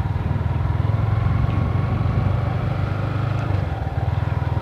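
Motorcycle engine running steadily at a cruise while riding, a low, rapid throb that holds level throughout.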